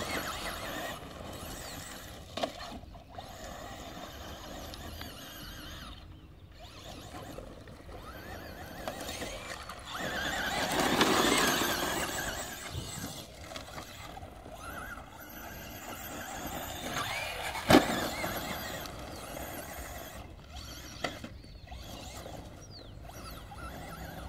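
Electric r/c Traxxas Slash short-course truck driving on dirt, its motor whining high as it speeds up and slows, loudest as it passes close about ten seconds in. A sharp knock comes about eighteen seconds in.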